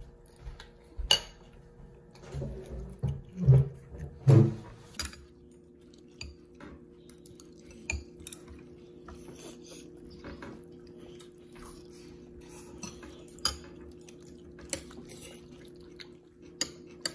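Cutlery clinking and tapping against a bowl of rice as a toddler eats, in scattered irregular clicks, with a cluster of louder knocks a few seconds in and a faint steady hum underneath.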